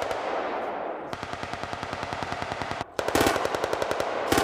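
Machine gun firing rapid automatic fire in a long run of evenly spaced shots. A brief pause comes about three seconds in, then a louder burst, and another burst near the end.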